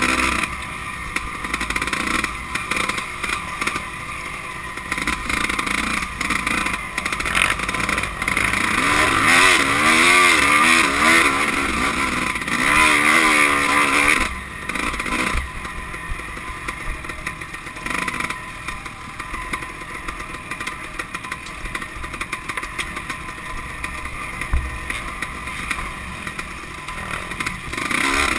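Off-road dirt bike engine being ridden hard, its revs rising and falling quickly as the throttle is worked, loudest about nine to fourteen seconds in.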